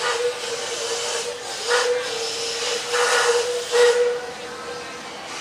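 Narrow-gauge steam train crossing a trestle bridge: a steady tone with irregular bursts of hissing as the carriages roll past, easing off near the end.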